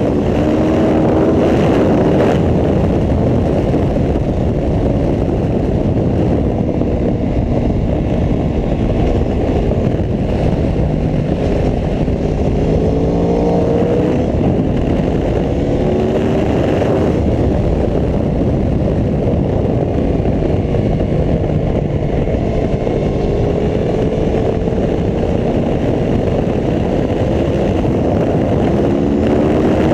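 Aprilia Tuono V4 1100 RR's V4 engine pulling hard and easing off again and again, its pitch climbing and dropping through the gears, under a steady rush of noise.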